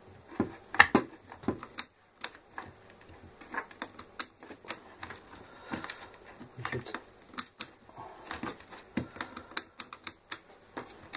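Irregular clicks and taps of hard plastic and small metal parts being handled as the disassembled angle grinder's rear housing is worked on with multimeter probes in hand.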